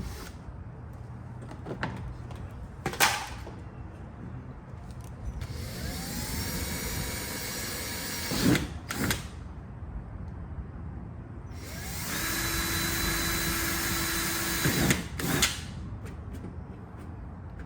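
A power drill boring bolt holes through a car's plastic front valence to mount a bracket. It makes two runs of a few seconds each: each spins up with a rising whine, holds steady, then stops with a couple of sharp knocks. A separate knock comes about three seconds in.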